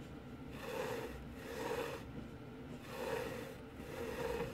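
A hand-worked Baltic birch plywood mechanical iris: its leaves and lever slide and rub wood on wood as it is opened and closed, in soft scrapes about once a second.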